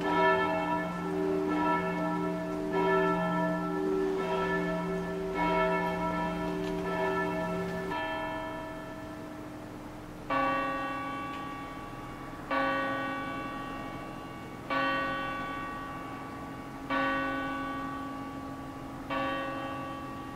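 Church bells ringing: one bell struck in even strokes a little over a second apart that stop about eight seconds in, then after a short pause a differently pitched bell strikes five slow strokes about two seconds apart, each left to ring out.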